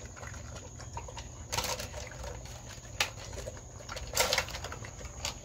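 A dog eating from a stainless-steel bowl: steady small chewing clicks and rustles, with three louder clatters of muzzle and food against the bowl, about a second and a half in, at three seconds, and just after four seconds.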